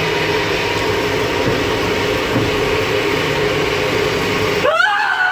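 Pushback tug's engine running steadily, heard from inside its cab while it pushes back a Boeing 737-800. Near the end, a short, loud scream rises and falls over the engine noise.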